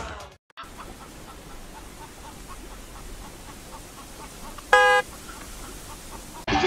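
White domestic duck giving one short, loud quack about five seconds in, over faint outdoor background noise.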